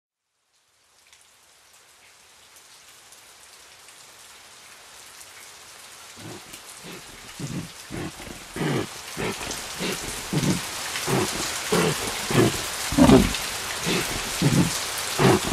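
A steady hiss fades in and swells. About six seconds in, low, regular thuds join it at roughly two a second and grow louder.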